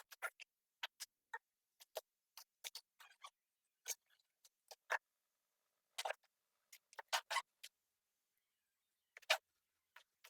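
A run of small, sharp clicks and taps at an uneven pace, roughly two or three a second, with silence between them.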